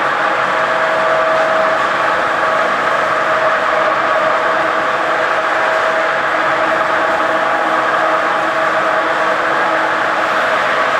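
A machine running steadily, a constant mechanical drone with a steady whine near the middle of the pitch range and no change in speed.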